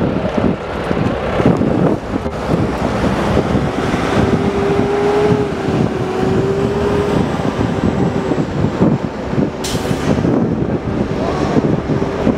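Widebody jet airliner's engines running at high power on the runway: a heavy, steady rumbling noise with a held whine, buffeted by wind on the microphone.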